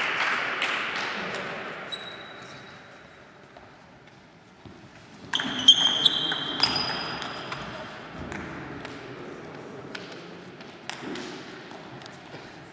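Table tennis rally: the celluloid ball clicking sharply off rubber bats and the table top, the hits echoing in a large hall. A burst of quick clicks comes about five seconds in, with short high squeaks, likely sports shoes on the hall floor.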